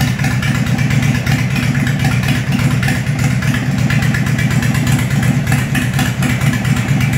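Harley-Davidson Sportster Seventy-Two's 1200 cc air-cooled V-twin idling steadily and loudly.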